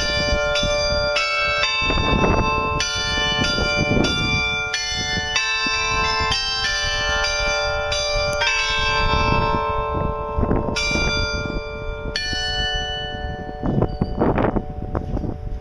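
The tuned bells of a glockenspiel clock tower playing a melody, a few struck notes a second ringing over one another. The notes stop about twelve seconds in and the last ones ring away. Gusts of wind rumble on the microphone underneath.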